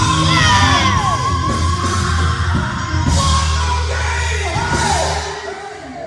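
Live band music with singers belting and shouting into microphones, voices sliding down in pitch about a second in, over a steady bass line. The music falls away near the end.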